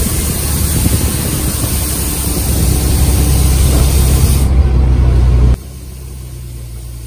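A moving bus's engine and road noise heard from inside the bus: a loud, steady rumble with a hiss over it. The hiss fades about four and a half seconds in, and about a second later the sound drops sharply to a much quieter steady engine rumble.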